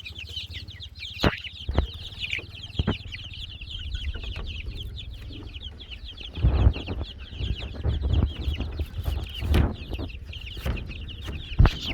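Chickens clucking over a constant chorus of rapid, high-pitched peeping. Scattered knocks and a low rumble run underneath, louder for a moment about six and a half seconds in.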